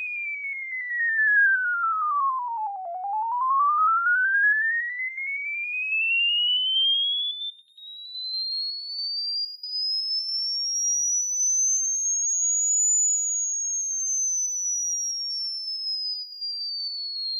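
Yamaha dome midrange driver, driven at 10 volts RMS, playing a sine-wave sweep. The single pure tone falls to a low pitch about three seconds in, glides steadily up to a high whistle, then starts falling again near the end, wavering in loudness as it goes.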